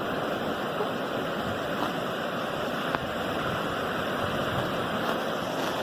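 Steady rush of sea surf washing on the shore.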